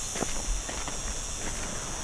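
Footsteps walking along an outdoor path, several light crunching steps in quick succession, over a steady high-pitched hiss.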